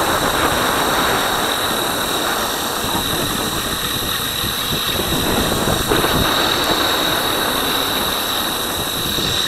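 Electric mountainboard rolling and carving on asphalt, heard from a camera mounted on the board: a steady rush of wind and tyre noise, with a thin, steady high whine.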